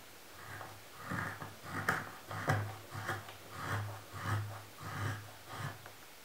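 A carving knife paring thin shavings off a wooden spoon in finishing cuts: a quick series of about nine short slicing strokes, one every half second or so, starting about a second in.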